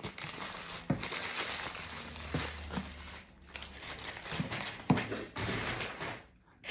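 Paper takeaway wrapping crinkling and rustling as it is handled, with a few sharp knocks, the loudest about five seconds in.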